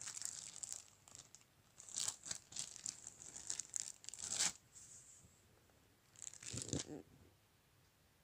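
Clear plastic wrapping around a packaged T-shirt crinkling as it is handled, in several bursts that stop about a second before the end.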